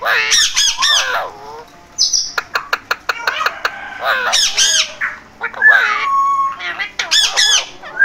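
Alexandrine parakeets calling: loud, repeated harsh squawks. About two and a half seconds in there is a quick run of sharp clicks, and around six seconds in a whistle falls and then holds steady.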